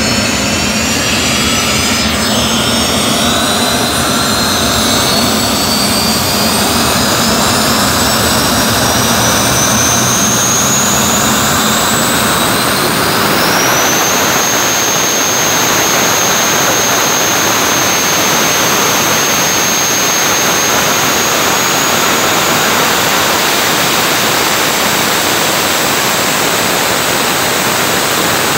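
Fighter-jet turbine engine of a jet dragster running on the ground, loud. Its high whine climbs in pitch as it spools up over the first dozen seconds, then holds steady over a constant rushing roar.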